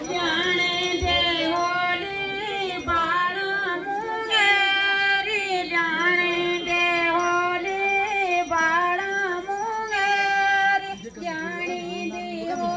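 Women singing a Garhwali jagar folk song together, in long held phrases that bend up and down.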